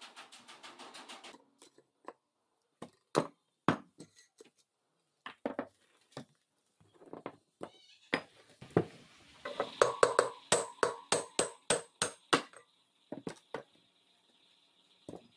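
Metal clicks and clinks from wire spokes and spoke nipples being worked loose on a spoked motorbike wheel: a quick run of even ticks at first, then scattered sharp clicks. About two-thirds through comes a run of ringing metallic clinks, about three a second.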